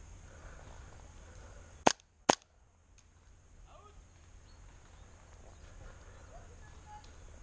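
Two airsoft replica shots, sharp cracks less than half a second apart, about two seconds in.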